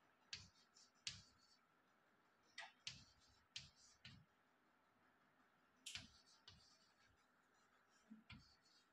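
Chalk tapping and scratching on a blackboard as numbers are written, heard as faint short ticks in small clusters with pauses between them.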